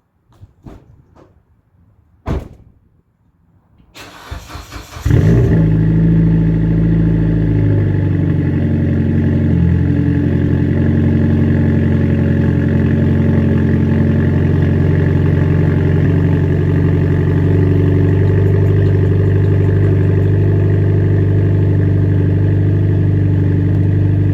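Mitsubishi Lancer Evolution X's turbocharged four-cylinder engine cranking briefly, catching about five seconds in and settling into a steady idle: a cold start after the car has sat unused for a while. A few faint clicks and one sharp knock come before the cranking.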